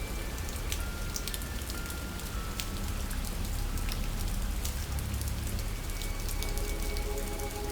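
Steady rain ambience: a dense patter with scattered sharp drop taps over a low rumble. Faint held music notes sit underneath and grow a little stronger near the end.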